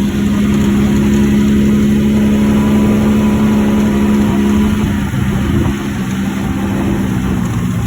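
An engine running steadily, its pitch dropping about five seconds in as it slows.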